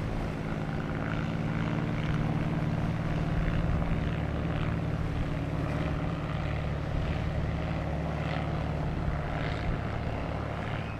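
Steady low drone of a cabin cruiser's inboard engines running at slow cruising speed.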